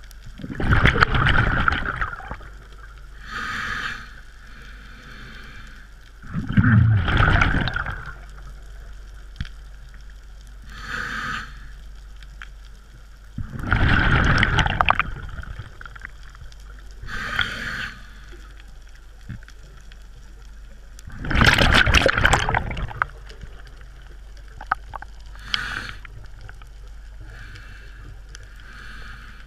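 A scuba diver breathing through a regulator underwater: four loud gurgling rushes of exhaled bubbles about seven seconds apart, each followed a few seconds later by a shorter, softer hiss of inhalation.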